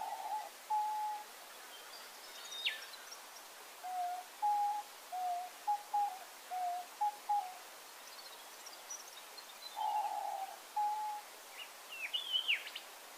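Diamond doves cooing: runs of short, soft, low coo notes that step slightly up and down in pitch, coming in three bouts. A few brief high chirps sound between them, near the end and about three seconds in.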